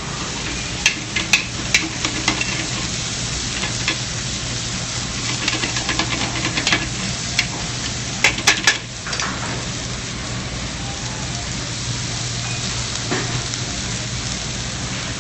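Sliced onions sizzling in butter in a metal sauté pan as they start to cook down toward caramelizing. Metal tongs turning them clack sharply against the pan in short clusters, about a second in and again about halfway through.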